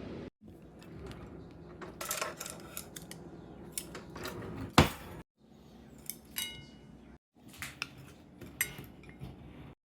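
Cutlery and dishes clinking and knocking in a series of sharp hits, the loudest just before the five-second mark. One clink about six seconds in rings briefly with a clear tone. The sound drops out completely for a moment a few times.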